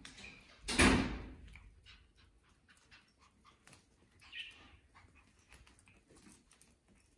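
Pomeranian puppies scampering on a hard tile floor, their claws clicking and tapping in small irregular ticks, with one short, loud burst of noise about a second in.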